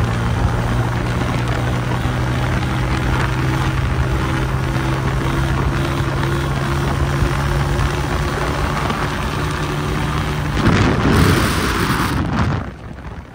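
Honda CG 125 single-cylinder four-stroke engine breathing through an aftermarket Goshi silencer, running at a steady cruising pitch under way. Around eleven seconds in a loud rushing noise covers it for about two seconds, then the sound drops sharply to a quieter, lower hum near the end.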